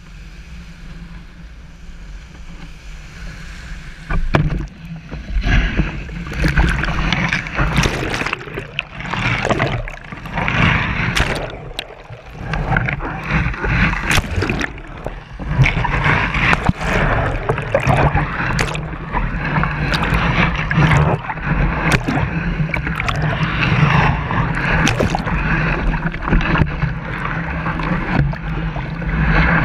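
Sea water rushing and splashing over a board-mounted camera as a kitesurfer is dragged through the surf, with a steady low rumble underneath. Quieter for the first few seconds, then from about four seconds in loud and choppy with many sharp splashes.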